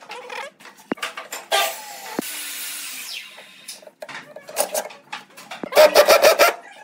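Makita 12V cordless impact driver driving screws through small metal L-brackets into a pine shelf, in short bursts of rapid hammering, the longest and loudest about six seconds in. Before that, clicks and knocks of screws and brackets being handled against the wood.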